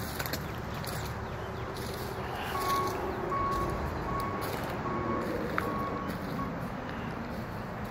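A vehicle's reversing alarm beeping six times at a steady pitch, evenly spaced, over a steady outdoor vehicle rumble. Short crunching steps on gravel come and go underneath.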